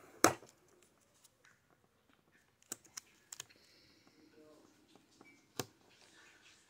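Small plastic toy pieces clicking and tapping as they are handled and fitted together: one sharp click just after the start, a few lighter clicks around three seconds in, and another near the end.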